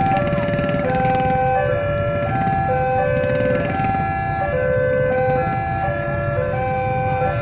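Railway level-crossing warning signal: an electronic chime of a few steady tones playing the same short tune over and over, about every second and a half. Motorcycle engines idle beneath it.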